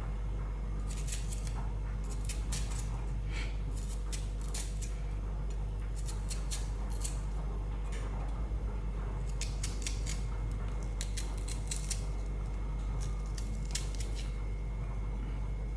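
Kitchen knife blade being sharpened: quick, high-pitched metal-on-metal scraping strokes in runs of several, over a steady low hum.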